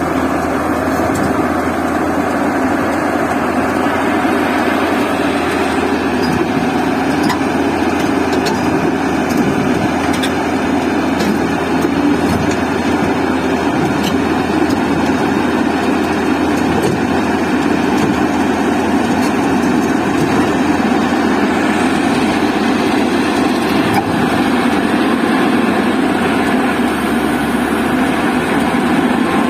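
Heavy diesel engine running steadily, from the excavator or transport truck, with faint ticks over it.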